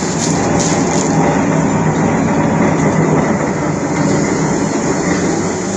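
Steady running of the diesel railcar SKR401's engine, heard from inside the passenger cabin.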